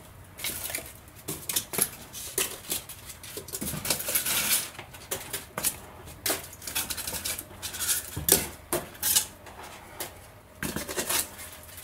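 A cardboard box being pulled out of a wooden crate packed with styrofoam blocks: irregular scraping, rustling and crackling of cardboard and foam, with light knocks against the wood.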